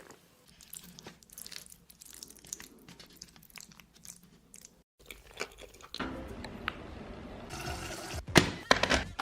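Close-miked chewing and crunching of food in the mouth, with irregular crisp bites. After a brief break about five seconds in, the crunching comes louder, with a few sharp crunches near the end.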